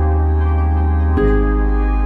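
Background music: slow, sustained synth chords over a deep held bass note, moving to a new chord about a second in.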